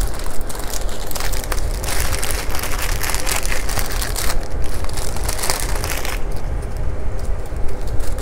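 Clear plastic packets of diamond-painting drills crinkling and crackling as they are handled, busiest in the middle and thinning out near the end.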